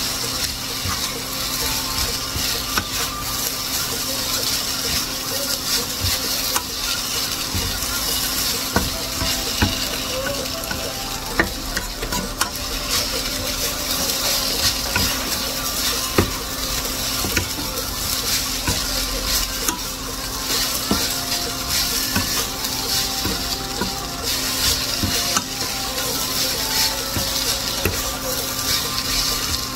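Shredded potatoes sizzling in a nonstick frying pan as a wooden spatula stirs and scrapes them, with irregular light knocks of the spatula against the pan.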